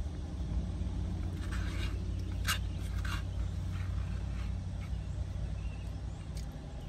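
A plastic spoon scraping and clicking in a foam cup of chili, a few short strokes about a second or two in, over a steady low rumble.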